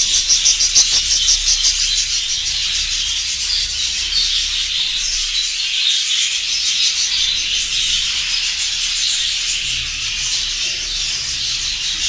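Massed chatter of a large aviary colony of budgies and lovebirds: a dense, steady, high-pitched din of many small parrots calling at once.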